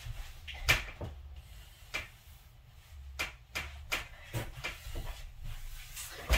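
Stiletto heels stepping and turning on a rug-covered floor: a string of light, irregular taps, with a louder knock near the end as she sits down on a leather futon.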